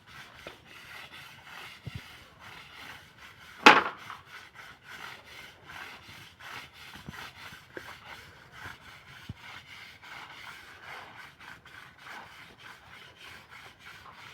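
Rhythmic scraping strokes of hand work, about three a second, with one loud sharp knock about four seconds in.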